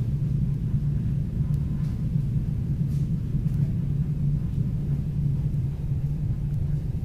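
Steady low rumble of a suburban passenger train running along the track, heard from inside the coach, with a few faint clicks.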